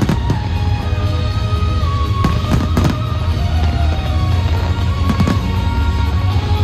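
Fireworks bursting in sharp bangs: two right at the start, three in quick succession about halfway, and one more near the end. Loud music with a heavy bass plays throughout.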